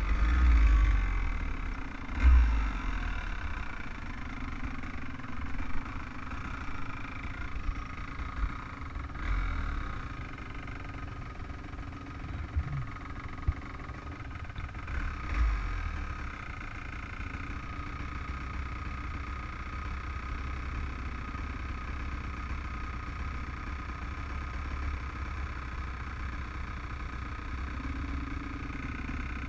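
Off-road vehicle engine running at low speed over a bumpy trail, with low rumble and a few sharp knocks in the first half. From about halfway it settles into a steady idle.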